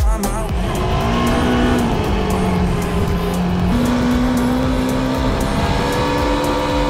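Quad bike engine running at varying speed, its pitch holding steady and then stepping up and down several times as the throttle changes.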